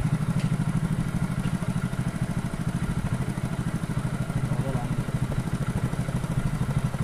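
Motorcycle engine running steadily at an even idle, with its exhaust blowing into a balloon held over the silencer.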